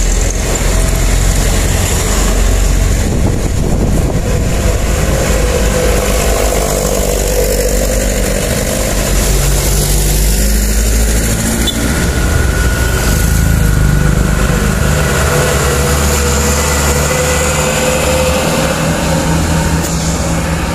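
Heavy trucks loaded with sugarcane passing close by on a steep climb, their diesel engines running under load with the hiss of tyres on the road. A motorcycle goes past about halfway through.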